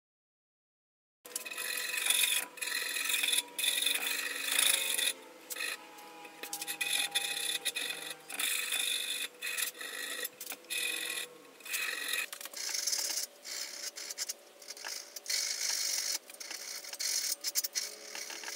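Small hand file scraping along the edge of a freshly milled steel dovetail, starting about a second in. It runs as a series of short rasping strokes with brief pauses between them.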